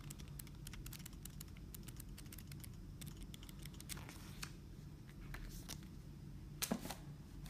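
Pages of a small paper instruction booklet being flipped with the thumb: a rapid run of soft paper ticks, thinning out later, with a louder rustle of paper handling near the end.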